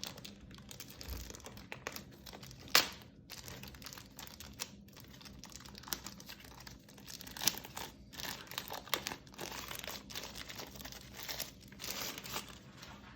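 Packaging being handled and unwrapped: irregular crinkling and rustling with scattered small clicks, and one sharp click about three seconds in.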